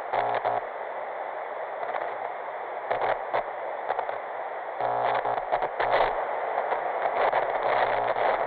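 TV static sound effect for lost signal: a steady hiss with glitchy crackles and buzzing bursts, near the start, around three seconds in, and again from about five seconds on.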